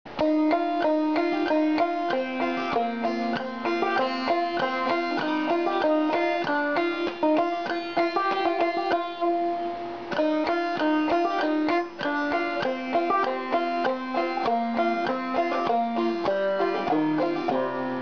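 Instrumental music played on a plucked string instrument, a fast run of picked notes.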